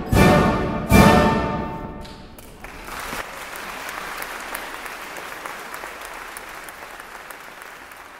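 Concert wind band of brass, saxophones, clarinets and percussion closing the piece with two loud chords about a second apart, the last one ringing out. Audience applause breaks out about three seconds in and carries on, slowly fading.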